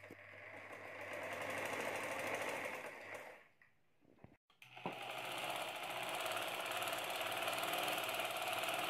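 Sewing machine stitching a seam in two steady runs, with a short pause of about a second in the middle.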